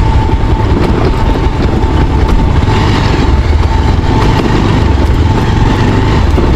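Motorcycle engine running as the bike rides over a rough, slippery dirt trail, with a heavy, uneven low rumble and a thin steady whine.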